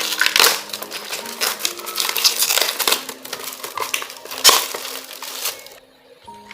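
Dense crinkling and crackling handling noise from a slime blind box being handled, stopping suddenly about six seconds in, with soft background music underneath.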